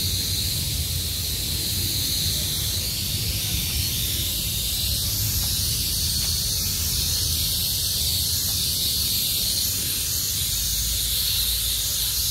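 A steady, high-pitched hiss over an uneven low rumble, with no distinct events.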